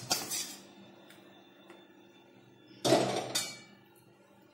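Metal kitchen utensils knocking and clattering: a short clink at the start, then a louder knock with a brief rattle about three seconds in, as a metal pan and spatula are handled.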